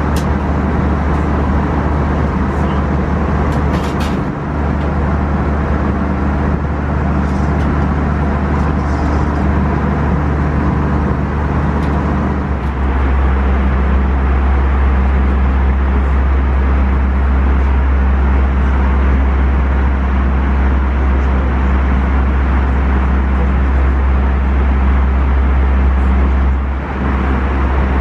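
Steady cabin noise of an Airbus A320 airliner in flight: an even rush of airflow and engines over a low drone. The sound shifts and gets a little louder about twelve seconds in.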